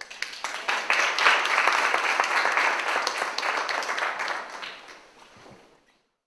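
Audience applauding: the clapping builds up within about a second, holds steady, then dies away near the end.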